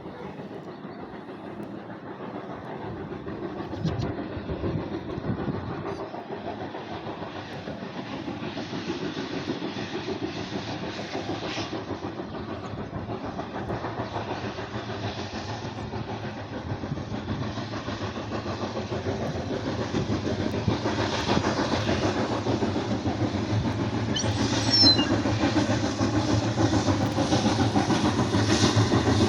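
Steam locomotive LV-0233, a Soviet LV-class 2-10-2, hauling a passenger train. Its running noise and the rumble of the train on the rails grow steadily louder as it approaches. About 25 seconds in, a brief high-pitched sound comes at the loudest moment.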